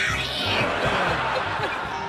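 Background music with a repeating low beat under a noisy din.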